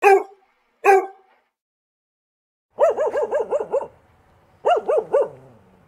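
Dog barking: two sharp barks about a second apart, then a quick run of about seven yapping barks, and after a short pause three more.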